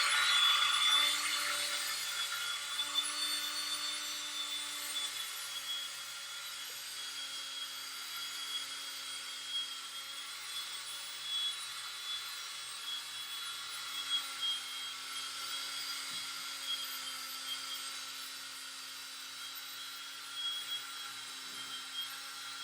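Power drill spinning a 3M Trizac P3000 sanding pad, wet sanding a plastic headlight lens: a steady whine with a hiss of the pad on the lens, louder in the first second, then running on at a slightly wavering pitch.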